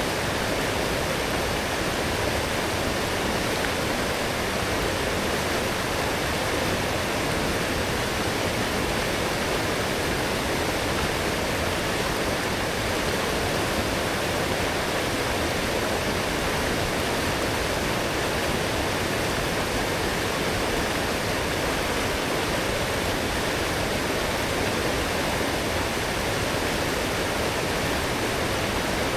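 Fast-flowing forest stream, swollen after heavy rain, rushing steadily.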